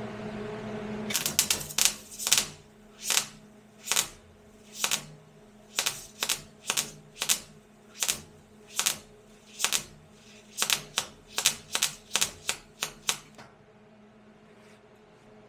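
A steady hum stops about a second in, then comes a long irregular series of short, sharp clicks or taps, roughly one to two a second with some in quick clusters, stopping near the end.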